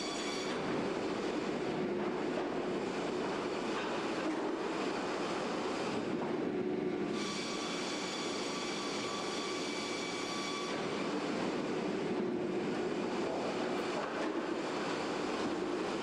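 Kara circular sawmill line running: a steady mechanical din from the conveyors and saws, with a high saw whine that comes and goes every few seconds.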